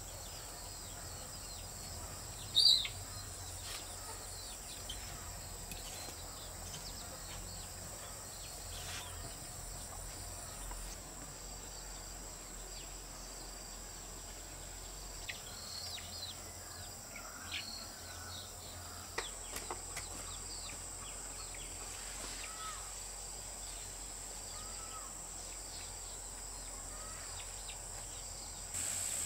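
Insects drone steadily at a high pitch, with scattered short bird chirps. The loudest sound is one sharp chirp about three seconds in.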